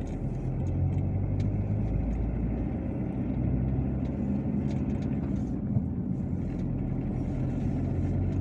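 Car engine pulling uphill in second gear, heard from inside the cabin as a steady low drone.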